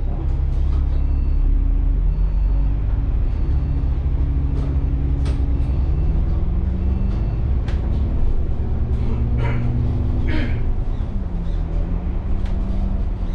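Alexander Dennis Enviro400 double-deck bus heard from inside: the diesel engine runs with its pitch rising and falling as the bus moves through traffic, over scattered cabin rattles. About nine and ten seconds in there are two short bursts of hiss.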